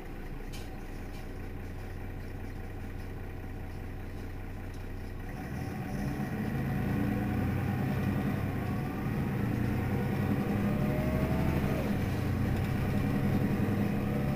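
Mercedes-Benz Citaro city bus engine idling steadily; about six seconds in its note becomes louder and fuller and holds there.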